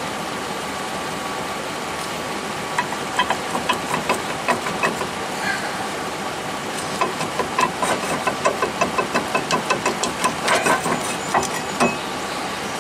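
Rusty rear brake rotor on a 2004 Chevy 2500 being rocked and pulled off the hub by hand: a run of short metallic clinks and knocks, about two or three a second, starting about three seconds in, over a steady background hum.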